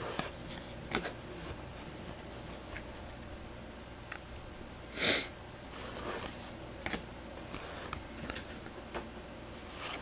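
Hockey trading cards being flipped through by hand: soft slides and flicks of card against card, with one louder short hiss about halfway through, over a low steady room hum.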